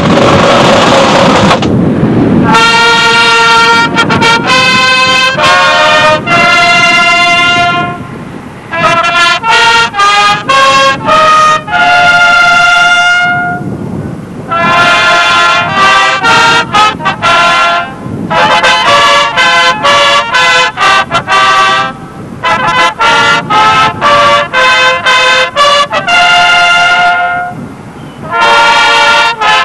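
A marching band of trumpets and flutes playing a tune in phrases of a few seconds, with short breaks between them. The tune comes in about two seconds in, after a burst of noise.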